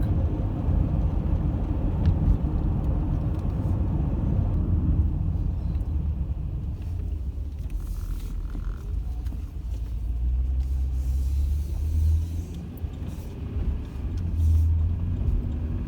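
Minivan driving, heard from inside the cabin: a steady low rumble of engine and road noise, with the low engine hum swelling twice in the second half.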